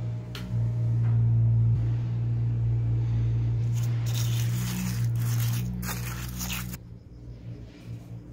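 A spoon stirring and scraping wet concrete mix in a plastic tub, a rough scraping noise that starts a little before halfway and cuts off suddenly, over a steady low hum.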